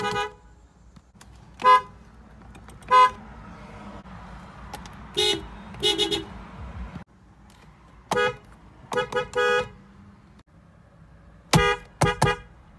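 Horns of several Japanese cars sounding in short toots over a steady traffic rumble. Some are single beeps, others come in quick runs of two or three.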